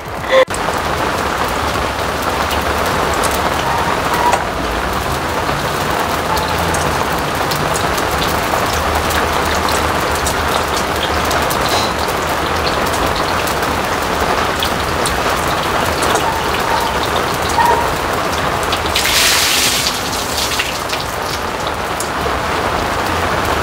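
Steady hiss of rain falling, with a short louder, brighter hiss about three quarters of the way through.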